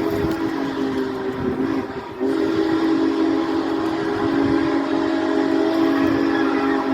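An approaching train's whistle sounding a deep chord in two long blasts, with a short break about two seconds in.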